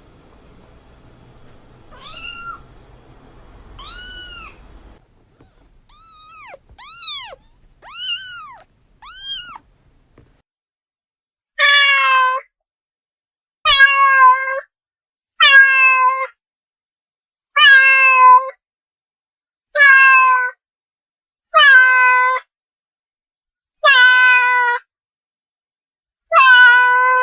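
Domestic cat meowing. Two separate meows come first, then a quick run of four softer, higher mews. From about halfway in, the same loud meow repeats about every two seconds, eight times.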